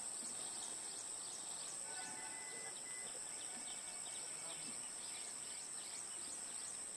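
Insects trilling steadily with a continuous high-pitched buzz, under faint open-field background noise.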